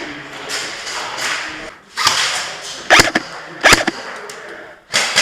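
Airsoft gunfire: two sharp, loud cracks about two-thirds of a second apart in the second half, over a steady noisy background.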